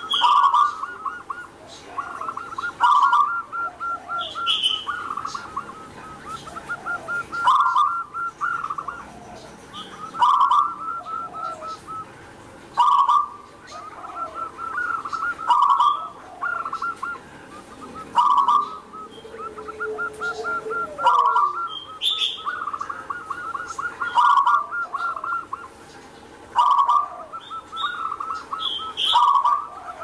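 Zebra dove (perkutut) singing: runs of rapid staccato cooing notes broken by a louder coo about every two to three seconds.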